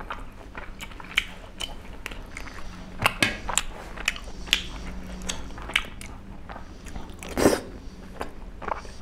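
Close-miked eating of tteokbokki: wet chewing and mouth smacks with many short sharp clicks, a louder cluster about seven seconds in.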